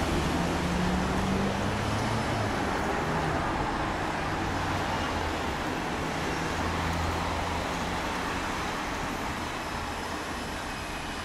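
Road traffic noise: vehicle engines and tyres as a steady low noise that slowly fades.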